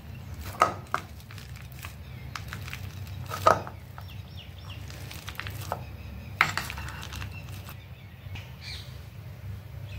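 Steel potato masher mashing sliced bananas in a stainless-steel bowl: soft squashing, with a few sharp metal clinks where the masher strikes the bowl, the loudest about three and a half seconds in.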